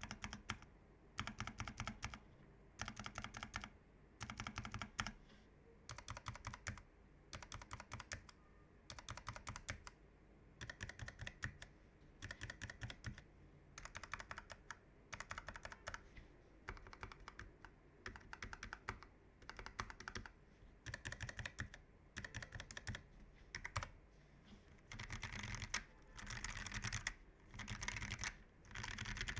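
Keychron K1 v4 tenkeyless mechanical keyboard with Gateron low-profile red linear switches being typed on: quick runs of keystrokes about a second long with short pauses between them, running together into longer, louder stretches near the end.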